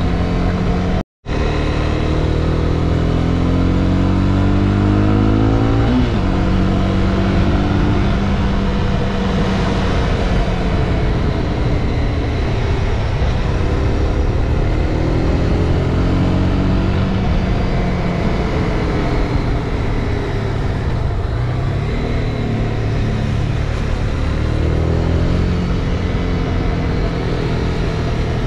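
Honda CB300R single-cylinder engine running under way, its pitch climbing and falling off again several times as the rider accelerates and eases off, with a sharp gear change about six seconds in. Wind rush is heard throughout. The sound cuts out completely for a moment about a second in.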